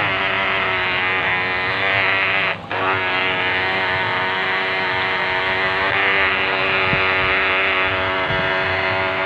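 Small electric motor of a radio-controlled model boat running steadily with a high whine, the power cutting out briefly about two and a half seconds in, over the hiss of wake water.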